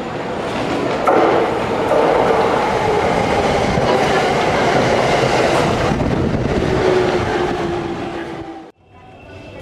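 JR Yamanote Line electric train passing close alongside a station platform, its wheels clattering over the rail joints, with a whine that falls slowly in pitch. The sound cuts off abruptly near the end.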